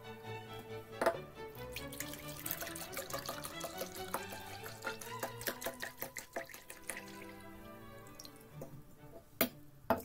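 Background music over milk being poured, splashing into a glass measuring jug and then into a stainless steel pot, with a sharp clink about a second in and another near the end.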